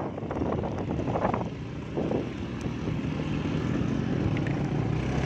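A vehicle engine running steadily while travelling, with a low, even engine note under road noise.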